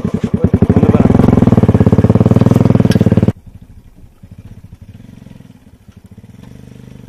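Motorcycle engine running steadily under load as it drags a tine cultivator through the soil, loud and close. About three seconds in it cuts abruptly to the same engine heard faintly from far off.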